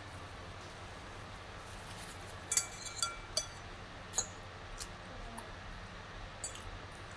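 Eating utensil clinking against a dish a few times, clustered about two and a half to three and a half seconds in, with a few lighter clicks later, over a steady low hum.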